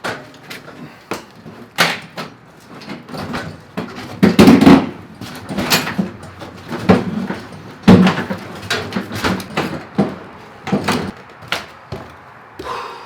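Refrigerator being moved and manhandled: a run of irregular knocks, bumps and scrapes, with heavy thumps about four and a half and eight seconds in.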